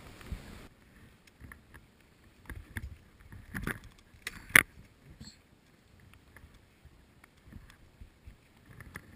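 Short, broad forest skis swishing and crunching through deep, soft snow, with ski poles planted alongside, giving irregular crunches and clicks, the sharpest about four and a half seconds in.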